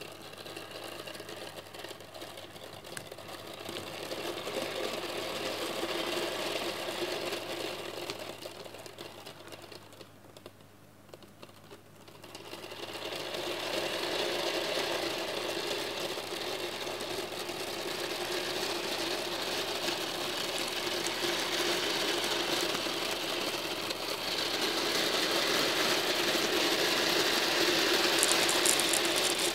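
A tray of a couple of thousand small steel balls rattling against one another as it is agitated: a dense, continuous clatter. It fades around ten seconds in, then comes back louder.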